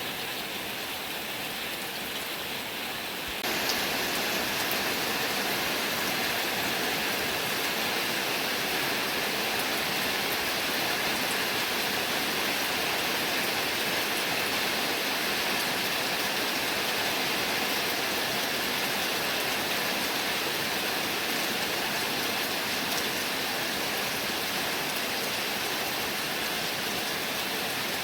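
Heavy rain falling, a steady hiss that turns suddenly louder about three and a half seconds in.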